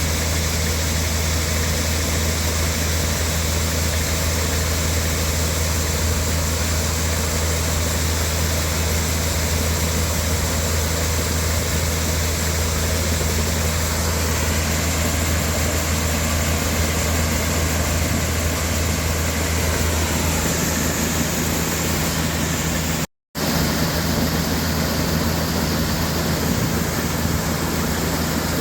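Combine harvester running steadily while cutting grain: a constant low engine hum under a broad rushing haze of the threshing gear. The sound cuts out completely for a fraction of a second about 23 seconds in, then resumes unchanged.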